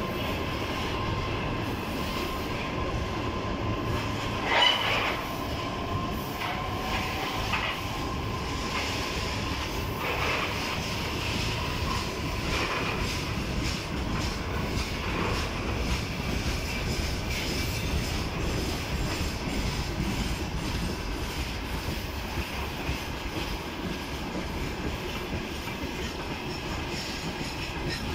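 Loaded freight wagons of a long goods train rolling past close by, with a steady rumble and clatter of wheels on the rails. A brief, loud, high wheel squeal comes about five seconds in, and fainter squealing tones come and go.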